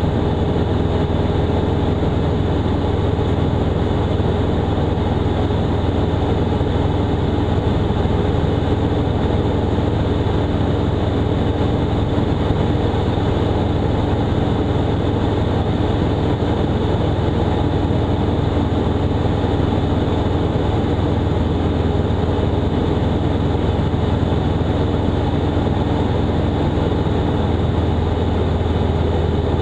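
Robin DR400/180's 180 hp Lycoming four-cylinder engine and propeller droning steadily in cruise flight, an unchanging low drone with a steady hum over it.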